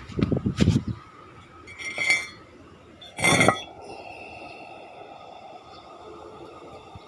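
Hard objects clinking and clattering: a low clatter at the start, then two ringing clinks about two and three seconds in, the second the loudest, followed by a faint steady hiss.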